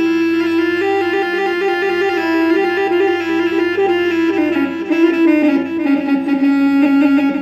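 Korg Triton keyboard playing a rababa (bowed Bedouin fiddle) voice in ataba–mawwal style: a slow, ornamented single-line melody over a steady low drone, sinking to a lower note after about five seconds.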